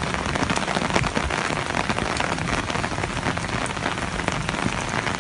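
Heavy rain falling steadily, with a dense spatter of individual drops striking hard surfaces.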